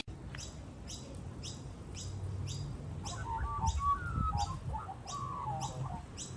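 A bird calling: a short high chirp repeated about twice a second, joined about halfway through by a lower warbling, whistled call.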